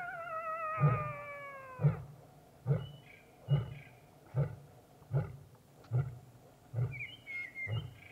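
Lion grunting: a long, even series of short, deep grunts a little under a second apart. Over the first two seconds a wavering, falling call sounds over the grunts.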